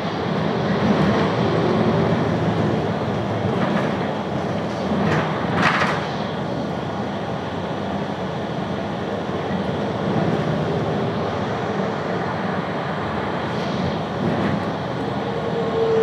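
Steady rumble of a moving vehicle heard from inside, with a short rattling clatter about five to six seconds in and a faint whine that sinks slightly in pitch near the end.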